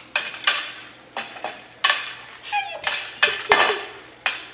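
Wooden chopsticks clicking against plates and beans clattering onto plates and into glass bowls: an irregular run of sharp clicks, some close together.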